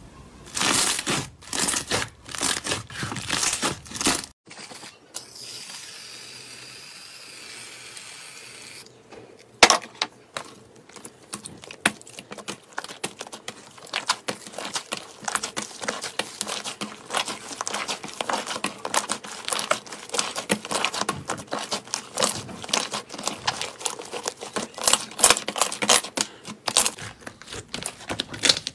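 Slime being pressed, squeezed and stretched by hand, giving crackly, crinkly pops of trapped air. The pops come in loud bursts at first, then after a quieter stretch of steady hiss a few seconds in, they run on as dense clicking to the end.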